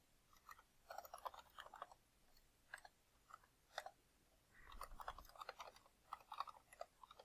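Faint computer keyboard typing: short runs of key clicks in several bursts, with pauses between them.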